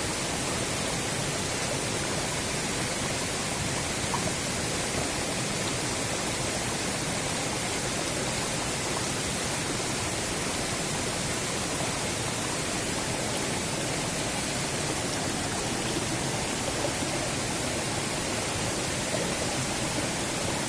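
Small rocky stream in tropical forest, its water rushing steadily, heard close to the water.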